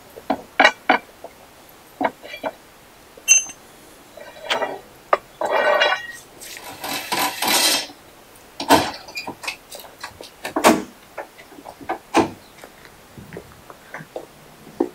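Scattered sharp metallic clinks and knocks of hand tools and cutting-torch gear being handled and put away. About two seconds of rushing hiss comes near the middle.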